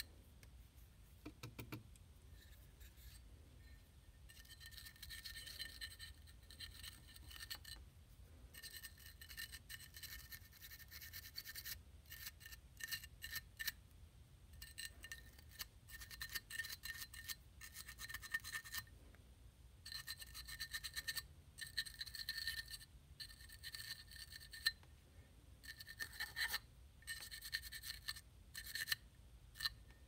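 A small hand-held wire brush bit scrubbing the metal chimney of a Zippo lighter insert to clean off stubborn stains: a quiet metallic scratching in irregular bursts of strokes with short pauses between.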